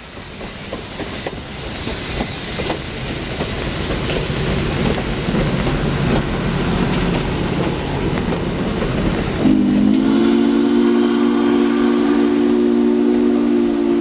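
A steam locomotive approaches, its running noise growing steadily louder. About nine and a half seconds in, SP&S 700's Hancock three-chime long-bell steam whistle starts, a low three-note chord held steady.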